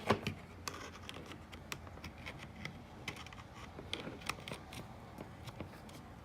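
Scattered faint clicks and taps of hands working a laptop, irregular and a little busier in the first second.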